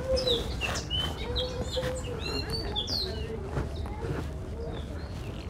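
Small birds chirping in quick, short notes, busiest in the first three seconds and thinning out after, over a steady low rumble.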